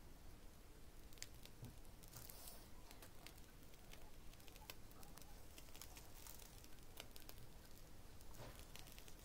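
Faint crinkling and squishing of a piping bag of cream being squeezed by hand, with scattered soft ticks over a low steady hum.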